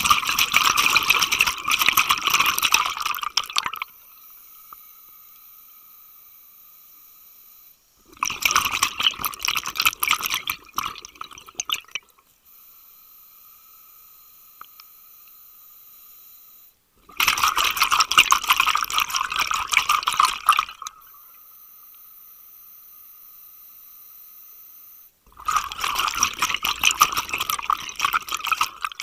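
Open-circuit scuba regulator exhalations heard underwater: four bursts of bubbling, each three to four seconds long and about eight or nine seconds apart. A faint steady hum fills the gaps between breaths.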